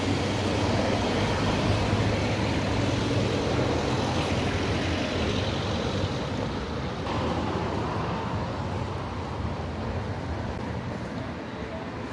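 Road traffic heard as a steady rumble, easing off slightly in the second half.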